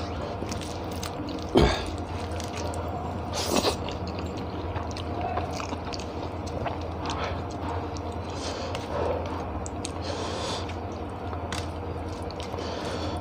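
A person eating rice and curry by hand from a steel plate: chewing, with small wet clicks and scrapes as the fingers mix the food. A sharp knock about one and a half seconds in, and a low steady hum underneath.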